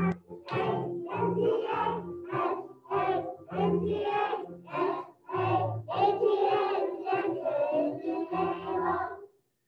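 A group of preschool children singing together in unison over a backing track, the sung syllables coming in a steady rhythm. The song stops about nine seconds in.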